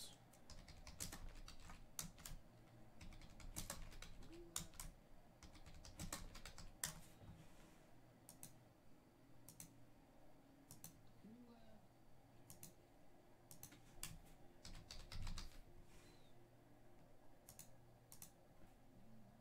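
Computer keyboard typing: faint, irregular keystrokes with uneven pauses between them.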